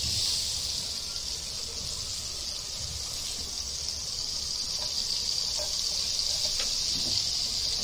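Butter sizzling in a hot non-stick frying pan, a steady high hiss. Chopped garlic goes into the fat partway through and sizzles along with it.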